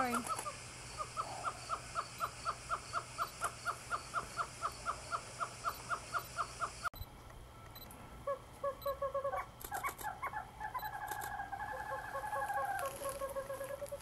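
Bird calls: a rapid, even series of short notes, about five a second, then, after an abrupt change, a different bird's song of short notes, trills and held whistles.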